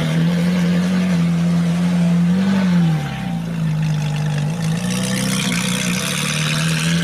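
A Ferrari 458 Italia's V8 idling steadily. The pitch sinks slightly about three seconds in and comes back up a couple of seconds later.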